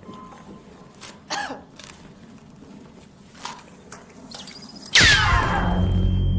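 A quiet background with two short, faint sounds, then about five seconds in a sudden loud blast with falling pitch that runs on into music.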